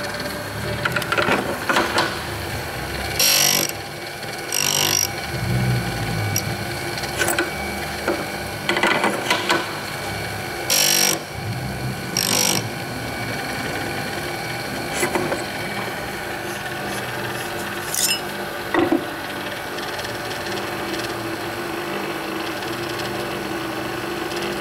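OSG S-sharpener drill grinder running with a steady motor hum, broken by several short, harsh bursts and sharp clicks.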